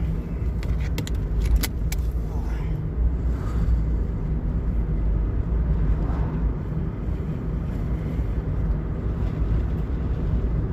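Low, steady rumble of a 2000 Mitsubishi Eclipse running, heard from inside the cabin, with a few sharp clicks between about half a second and two seconds in.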